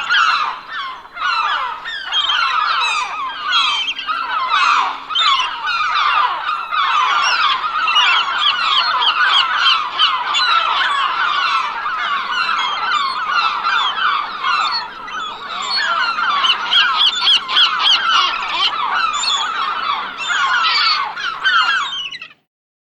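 A flock of gulls calling continuously, many short cries overlapping one another. The sound cuts off suddenly near the end.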